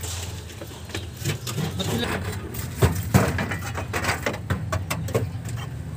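Radiator being worked loose by hand and lifted out, knocking and scraping against the surrounding metal frame and shroud, with two sharp knocks about three seconds in.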